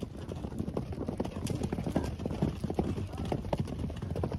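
A herd of horses galloping past on a sandy track: a rapid, irregular clatter of many overlapping hoofbeats.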